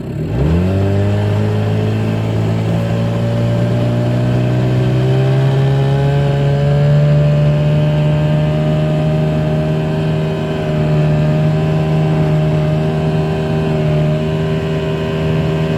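20 hp Mercury outboard motor with a hydrofoil fin throttled up hard from near stop. Its pitch jumps in the first second, keeps climbing slowly for several seconds as the boat gets up on plane, then holds steady at speed.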